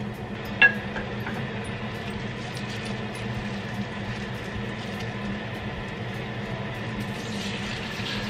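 A steady low hum and hiss over the gas stove. About half a second in comes a single sharp metal clink as a small steel cup of oil is set on the cast-iron pancake pan. Near the end a light sizzle rises as an egg-coated bell pepper ring goes into the hot oil.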